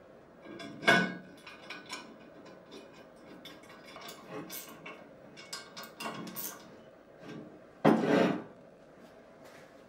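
Steel bolts and nuts clinking against a rusty steel motor bracket as they are fitted and tightened with a wrench: a scatter of small metallic clicks, with a louder clank about a second in and a longer clank near eight seconds.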